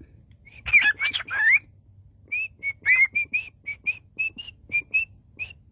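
Pet talking bird whistling: a few gliding notes about a second in, then a run of about a dozen short whistled notes at nearly the same pitch.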